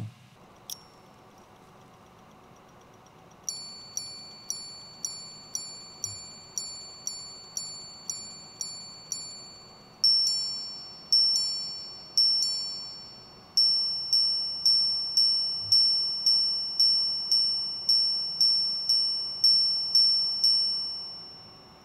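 Chopard L.U.C Full Strike Tourbillon minute repeater striking the time on its monobloc sapphire gongs. After a single click there are twelve lower hour strikes, three two-tone quarter strikes, then fourteen higher minute strikes, each ringing clear and fading. Together they chime 12:59.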